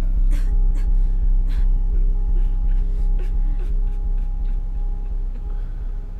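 Low, dark ambient drone from a film soundtrack, with faint steady higher tones and scattered sharp clicks above it, slowly fading toward the end.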